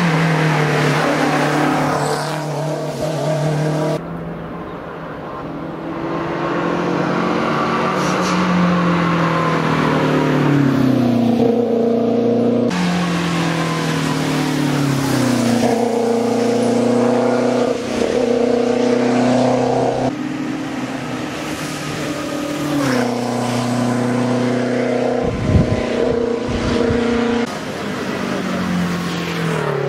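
Lancia Delta Integrale's turbocharged four-cylinder engine accelerating hard uphill, revs climbing and then dropping at each gear change, in several short clips one after another. A short burst of low popping stands out about 25 seconds in.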